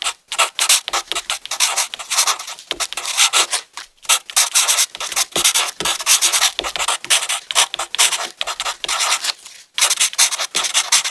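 Felt-tip marker and pen tips scratching across paper in quick, short rubbing strokes as letters are coloured in, with a few brief pauses.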